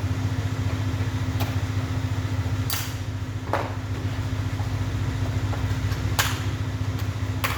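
A steady low engine-like hum, with five sharp clicks or knocks spread through it.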